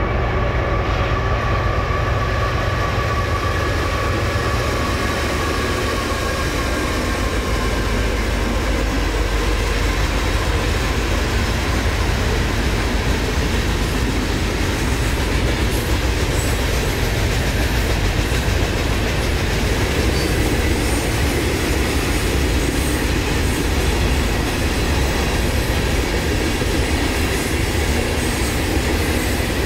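Union Pacific freight train rolling past at speed: a steady, loud rumble of diesel locomotives and freight cars, with wheels clattering on the rails.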